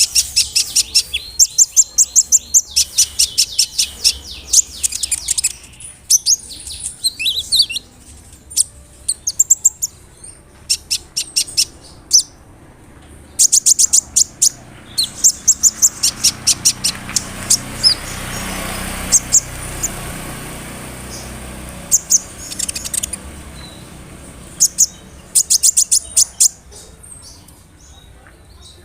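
Konin (kolibri ninja) sunbird singing in fast bouts of high chirps and trills, with short pauses between them. Partway through, a soft rushing noise swells and fades under the song.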